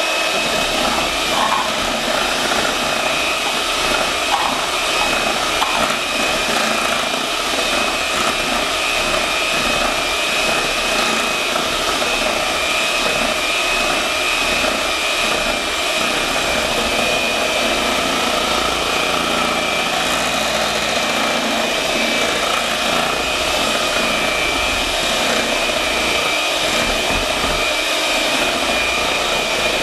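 Electric hand mixer running steadily at speed, a constant motor whine as its beaters whip cheesecake filling in a stainless steel bowl.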